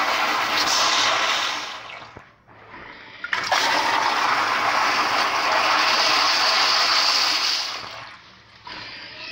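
Kohler Anglesey flushometer toilet flushing. The rush of one flush dies away about two seconds in; a second flush starts suddenly about three seconds in, runs loud and steady for about four seconds, then tapers off.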